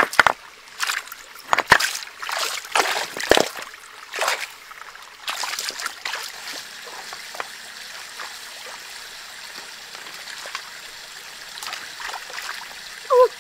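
Splashing and knocking in a shallow rocky stream as stones are moved and hands go into the water, a quick run of sharp splashes over the first few seconds, then the steady trickle of the stream.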